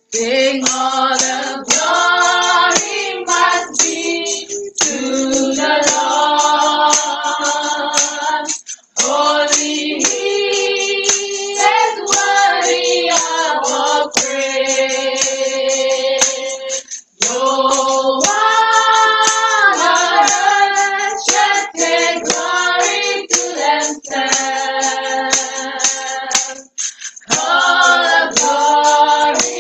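A group of voices singing a praise-and-worship chorus together, in sung phrases separated by brief pauses.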